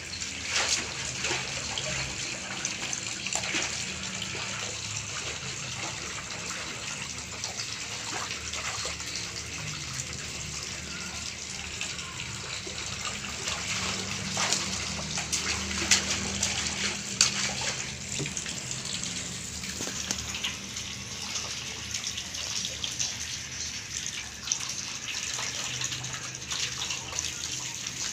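Water sloshing and splashing in a large aluminium basin as a toddler sweeps his hand through it, a steady wash with small splashes now and then.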